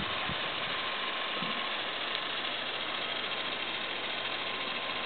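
Steady hiss of water spraying from a tripod-mounted garden sprinkler.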